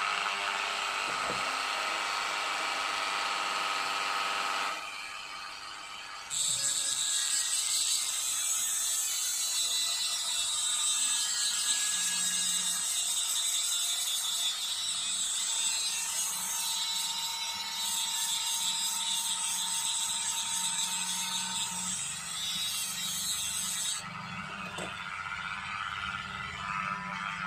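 Small electric rotary drill with a diamond bit running steadily as it drills into the first layer of a glued eMMC chip on a phone board. A harsh high grinding is added from about six seconds in until a few seconds before the end.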